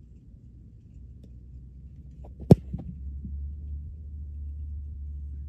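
A football kicked for a field goal off a hold: one sharp strike of the kicker's foot on the ball about two and a half seconds in, over a steady low rumble.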